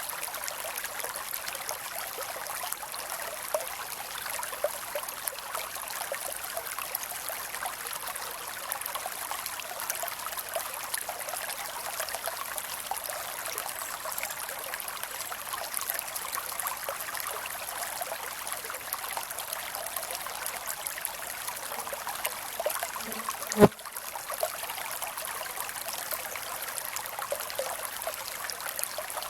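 Creek water running steadily, a continuous rushing trickle. One brief low thump stands out late on.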